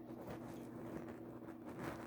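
Lock pick and tension tool working inside a Master Lock 532 padlock's keyway: faint scratching and small clicks as the pins are probed, with a slightly louder cluster of clicks near the end. A steady low hum runs underneath.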